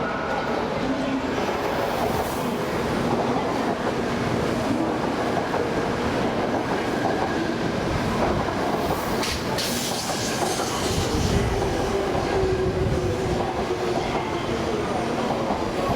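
A 700 series Shinkansen train pulling into the station. It runs steadily with wheel clatter and a motor whine that eases down in pitch as the train slows. A short hiss comes about nine seconds in.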